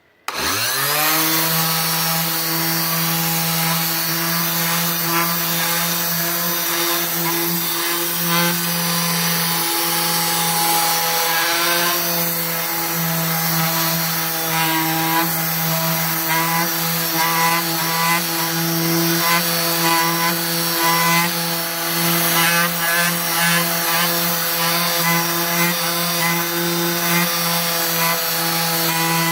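Electric orbital hand sander switched on, its motor spinning up within the first half second, then running with a steady hum while it sands a wooden board smooth.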